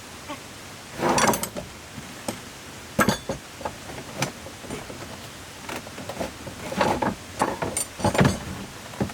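Irregular knocks, clunks and scrapes of hard objects being handled, loudest about a second in, at about three seconds and near the end, over a steady hiss.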